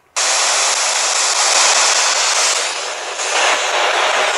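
A ghost box (spirit box) switched on: a click, then loud, steady radio static hiss as the radio sweeps.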